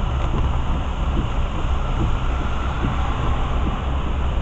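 Steady road noise heard from inside a car driving on a rain-soaked freeway: tyres hissing on wet pavement and rain on the windshield over a low rumble.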